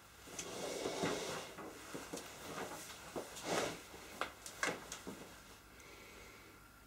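A person sitting down on a wooden chair and settling in: clothes rustling, then several short knocks and clicks from the chair and table as he shifts and folds his hands.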